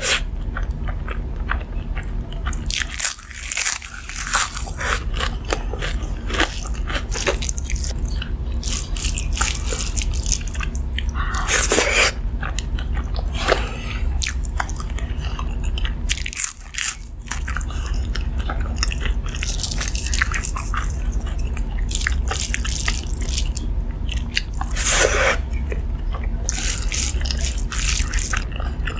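Close-miked eating: crisp crunching bites and chewing, with many short crackles and a few longer crunches, over a steady low hum.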